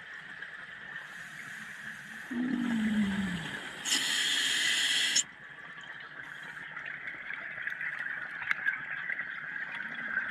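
Underwater recording of a scuba diver breathing: the regulator's exhaled bubbles rush out loudest in a burst about four seconds in, with fainter exhalations around it, over a steady hiss. A short low tone falls in pitch just before the loud burst.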